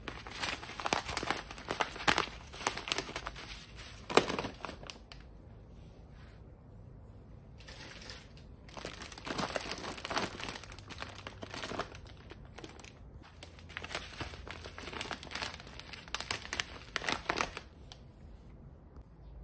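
Plastic food bags crinkling and rustling as they are handled and packed into a plastic basket, coming in bursts with short lulls between.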